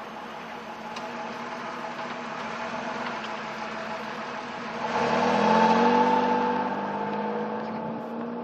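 1995 Pontiac Bonneville SE's 3800 Series II V6 running through its stock exhaust: a steady low idle, then a single rev about five seconds in, the pitch climbing quickly and settling slowly back toward idle.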